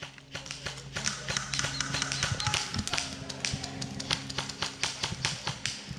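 Airsoft gunfire: a rapid, irregular string of sharp taps and clicks from guns firing and BBs striking nearby.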